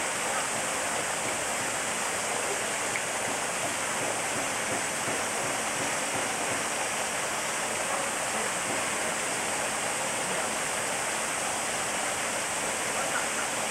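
Steady, even rushing noise with no breaks or changes in level.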